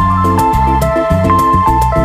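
Background music: a melody of held notes over a bass line with a steady beat.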